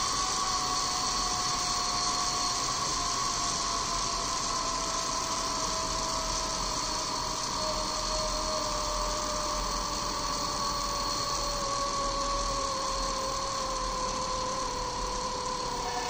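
Small brushless DC outrunner motor running under an electronic speed controller with a steady whine whose pitch falls slowly as the motor is stepped down from about 55 to 36 revolutions per second.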